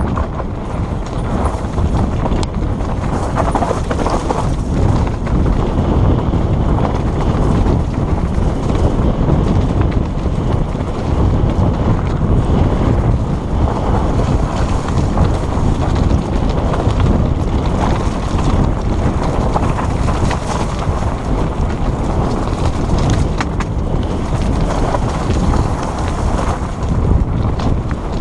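Mountain bike descending a rough dirt and rocky trail, heard from a helmet-mounted camera: a steady rush of tyres over dirt and stones, with frequent clicks and knocks as the bike rattles over bumps, under wind buffeting the microphone.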